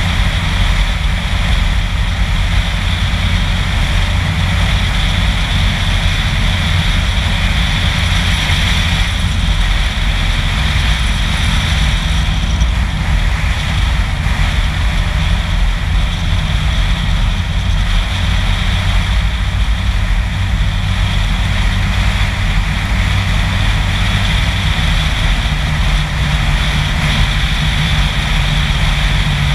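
Car travelling at road speed: a steady, loud rush of wind and tyre noise with a heavy low rumble. A steadier low engine hum joins near the end.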